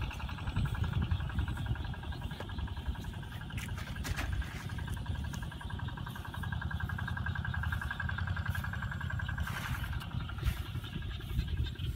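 A small engine running steadily, with a steady mid-pitched whine over a fast low pulsing and a few light clicks.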